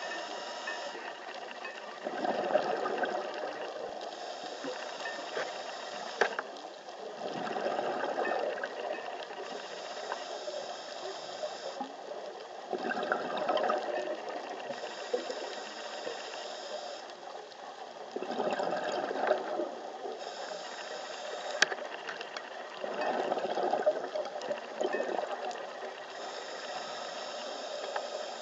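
A scuba diver breathing through a regulator, heard underwater: a high hiss on each inhale alternating with a bubbling rush of exhaled bubbles, about one breath every five seconds, five breaths in all. Two sharp clicks stand out.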